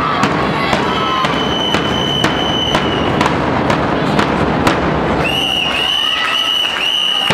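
Murga percussion: bass drums with cymbals mounted on top (bombos con platillo) beating a steady rhythm of about two hits a second. A long high whistle tone sounds through the first half, and near the end the whistle is blown in four short blasts.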